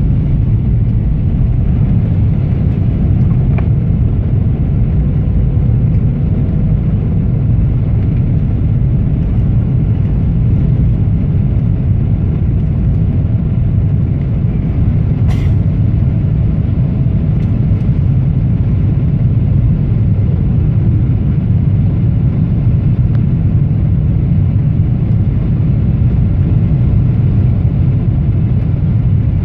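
Steady loud cabin roar of a Boeing 777-300ER in flight, heard from a window seat by the wing: engine and airflow noise, deep and even, with a faint steady tone above it. A single sharp click about fifteen seconds in.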